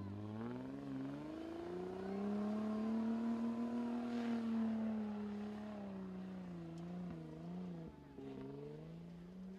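4x4 SUV's engine revving under load as it climbs a steep dirt slope: the revs rise over the first two seconds, hold high for several seconds, then drop and waver before picking up again near the end.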